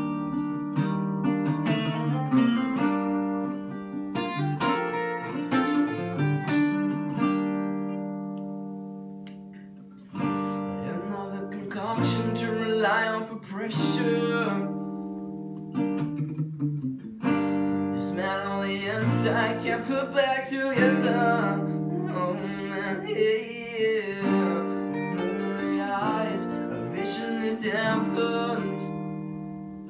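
Two acoustic guitars played together, strummed and picked. A chord rings out and fades away about eight seconds in, then the playing starts again near ten seconds, with a man singing over it.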